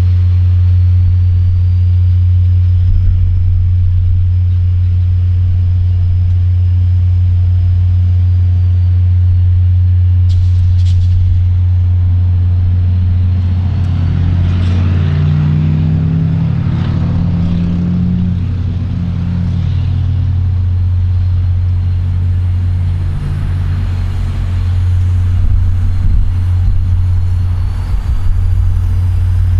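Diesel locomotive running with a steady deep rumble. Around the middle its note moves through a series of stepped tones, rising and then falling, for several seconds.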